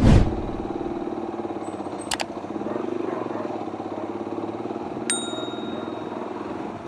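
Motorcycle engine with an Akrapovic aftermarket exhaust pulling away on a burst of throttle, then running steadily at low speed while towing a motorcycle that won't start. A short metallic ding about five seconds in.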